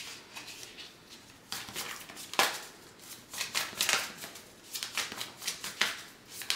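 A deck of tarot cards being shuffled by hand: a run of irregular soft card slaps and rustles.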